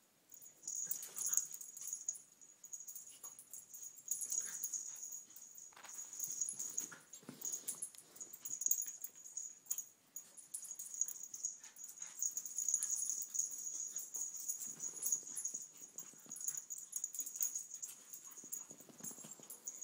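Two small dogs playing rough with each other, making short, irregular play noises that come and go.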